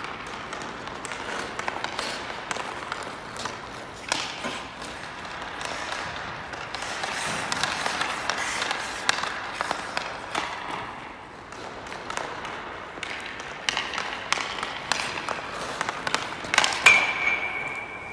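Hockey skate blades scraping the ice, with the clack of a stick on pucks as a player stickhandles and shoots. Near the end a shot strikes the metal goal post with a sharp clang that rings on as a clear ping, fading over about two seconds.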